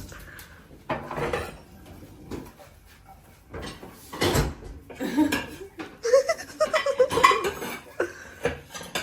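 Dishes and cutlery clinking and clattering in a series of irregular knocks, with brief voices or laughter about two-thirds of the way through.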